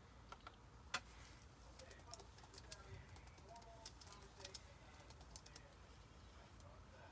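Light, irregular clicks and taps of typing, the sharpest about a second in, over a near-silent room. A few faint soft pitched sounds come and go in the background.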